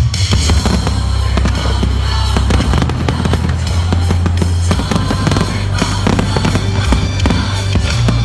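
Fireworks going off in rapid succession: aerial shells and fountains popping and crackling with many sharp reports, over loud music with a heavy, steady bass.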